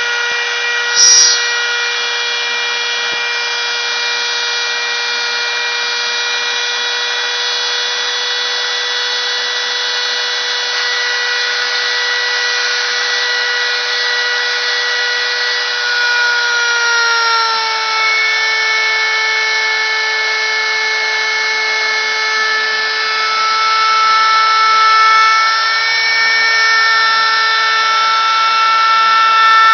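CNC router spindle running a cut with a loud, steady whine, its pitch dropping slightly a little past halfway as the load changes. A single sharp click about a second in.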